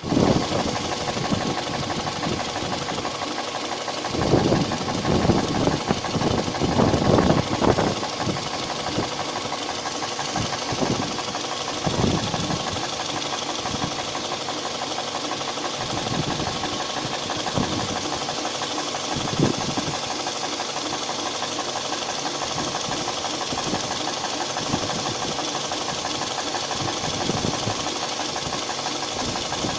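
Toyota 1AZ-FE four-cylinder petrol engine running steadily, with an odd noise the owner cannot identify. Louder irregular knocking bursts come several together a few seconds in and singly a couple of times later.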